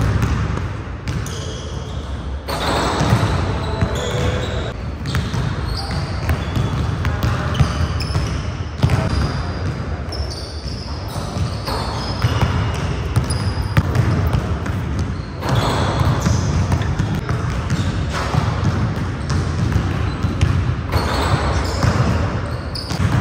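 Basketballs bouncing on a hardwood gym floor, with short sneaker squeaks, a few sharp impacts and voices in the background.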